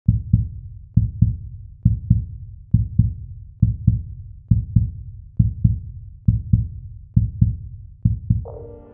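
A heartbeat-like electronic beat: pairs of low thumps repeating a little faster than once a second, with a melody of sustained tones coming in near the end.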